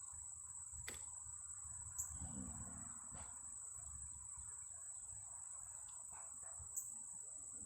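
Insects, crickets by their sound, trilling steadily in a high thin tone in the background, with a couple of faint clicks of handling.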